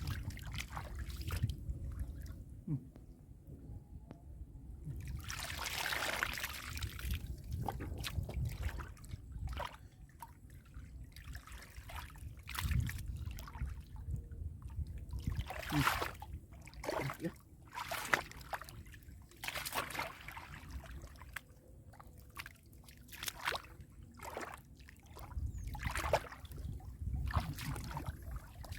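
Irregular splashing and sloshing of shallow muddy water, in many short strokes a second or so apart, as hands and feet work through it.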